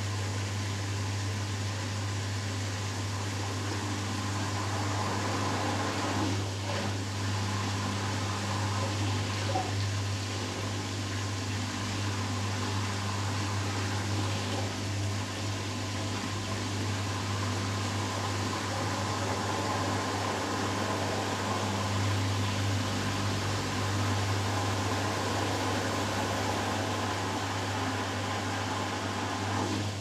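Hoover Dynamic Next washing machine in its final spin, the drum turning at high speed with a steady motor hum and whine.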